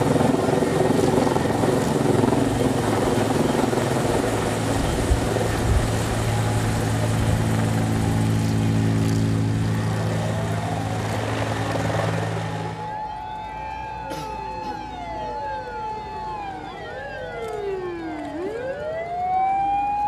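A loud steady mechanical drone with a low hum for about the first thirteen seconds. It then cuts off and gives way to several emergency vehicle sirens wailing up and down over one another, one of them winding up again near the end.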